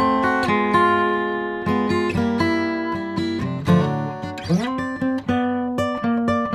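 Background music: an acoustic guitar playing a melody, with a few notes sliding up in pitch.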